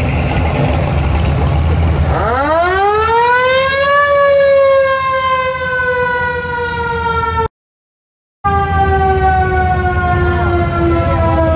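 A siren winds up steeply over about two seconds, then slowly winds down in pitch, over the low running of passing car engines. The sound cuts out for about a second in the middle.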